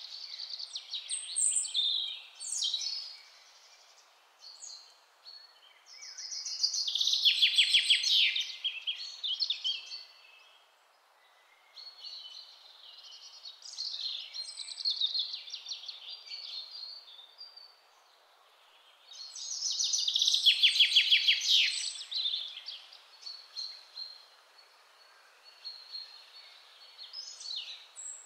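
Songbirds singing: scattered chirps and whistled phrases, with a loud fast trill about 7 seconds in and again about 20 seconds in, over a faint steady hiss.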